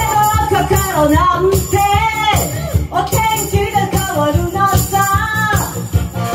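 A woman singing a rock song into a microphone over a live band, with a steady drum beat and cymbals. Her voice drops out briefly near the end while the band keeps playing.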